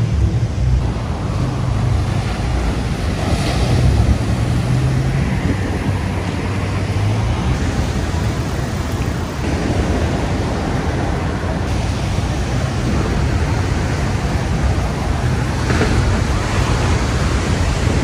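Wind rumbling on the microphone over the steady wash of ocean surf, with no distinct single event.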